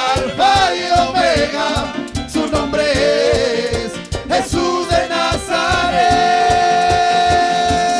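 Live Latin Christian worship music in a salsa-like style: a band with a steady percussion beat and several singers. A little past halfway a long note is held.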